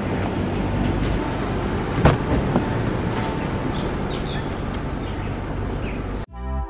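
Steady low rumbling noise, with a sharp knock about two seconds in; music starts just before the end.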